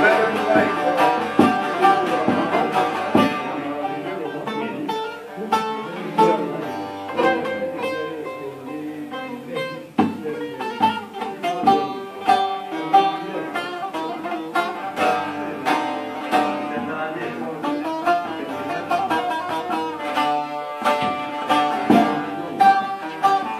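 A plucked string instrument played solo, a continuous instrumental melody of quick plucked notes.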